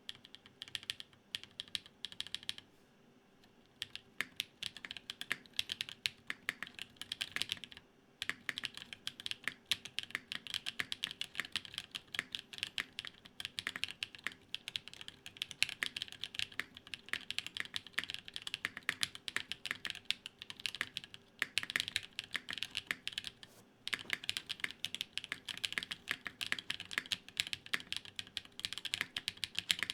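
Fast typing on a Gok 7V custom mechanical keyboard, built plateless with lubed Everglide Dark Jade tactile switches: a steady stream of keystrokes with short pauses about 3 s in, about 8 s in and about 24 s in.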